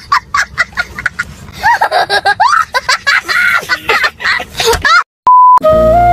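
Squeaky, high-pitched voices chattering and laughing in quick bursts. Near the end they cut off, a short steady beep sounds, and flute music begins.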